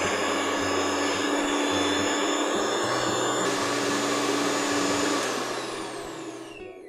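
Electric mixer grinder running, grinding onion and garlic with coconut into a fine masala paste. A steady motor noise runs until about five seconds in, when it is switched off and the motor winds down with a falling whine.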